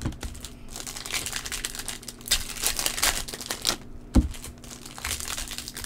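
Trading-card pack wrapper crinkling and cards being flicked through by hand, a run of small crackles and ticks, with a single thump about four seconds in.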